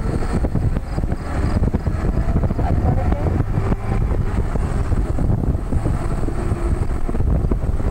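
Steady low rumble of a moving vehicle with wind rushing over the microphone.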